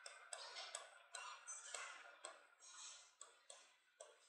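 Faint scratching of writing on a blackboard: a quick, irregular series of short strokes as letters are written out.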